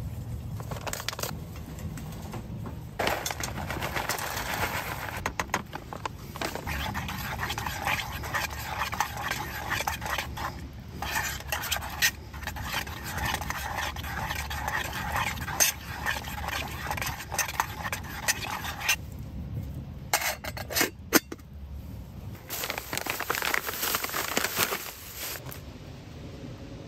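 A metal spoon scraping and clinking against a metal cooking pot as a rehydrated stew is stirred and scooped, with a few sharp clinks about two-thirds of the way through.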